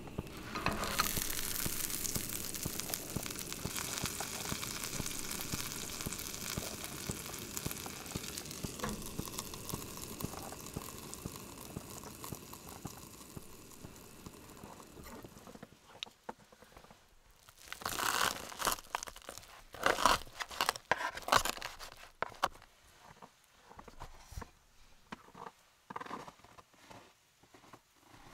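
Food sizzling in a pan, a steady crackling hiss that slowly fades out over about fifteen seconds; then scattered clinks and scrapes of a utensil on a dish.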